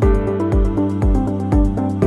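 Electronic background music with a steady beat, about two beats a second, under sustained synth chords.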